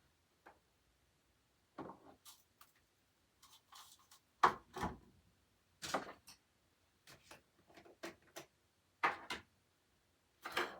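Irregular knocks and clatters of small objects being handled and set down, about ten in all with quiet gaps between them, the loudest about four and a half seconds in.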